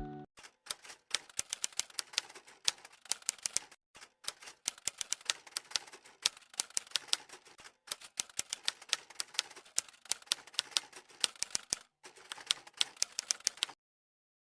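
Rapid typewriter key clicks in quick irregular runs broken by short pauses, stopping about a second before the end.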